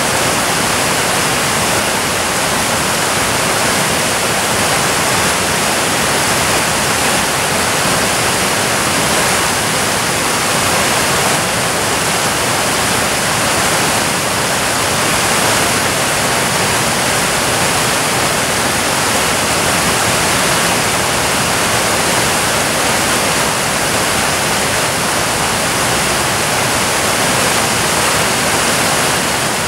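Waterfall pouring into a plunge pool, a loud steady rush of falling water with no let-up.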